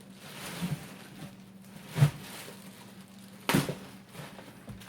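Packaging being handled and rustled while a box is unpacked, with two sharper, louder handling noises about two and three and a half seconds in, over a faint steady hum.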